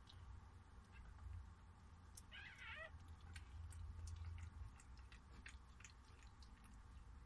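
A newborn puppy gives one short, wavering squeal about two seconds in. Soft, wet clicking follows as the mother dog licks it.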